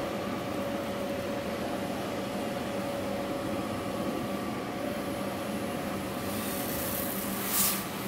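Jiangsu Starlight XG-360GF 360 kW diesel generator set in its soundproof canopy, running steadily: an even drone with a steady hum in it. A brief hiss about seven and a half seconds in.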